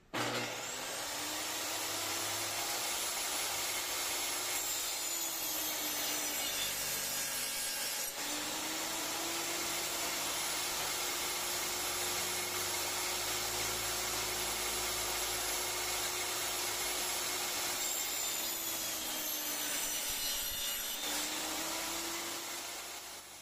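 Electric saw cutting wood: the machine runs steadily under load, its motor tone sagging and recovering several times as the blade bites into the stock.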